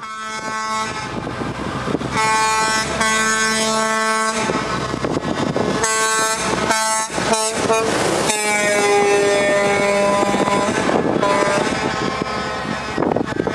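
Truck air horns sounding again and again from a passing convoy of prime movers: several long blasts and a quick run of short toots about halfway through, over the trucks' engine and road noise.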